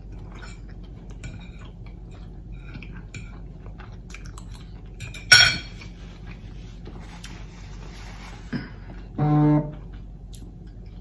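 A metal fork clicking and scraping against a plate, with chewing in between. One sharp, ringing clink comes about halfway through, and a short hummed "mm" comes near the end.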